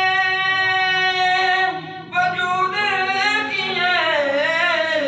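A man singing a devotional Urdu kalam solo into a handheld microphone. He holds one long, steady note for nearly two seconds, breaks briefly, then sings a run of wavering, ornamented notes that bend up and down.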